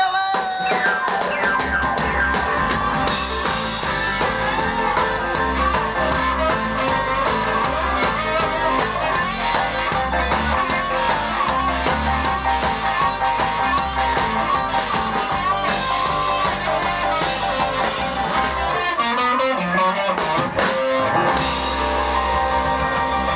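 A rock band playing live, an upbeat rock and roll song led by guitar.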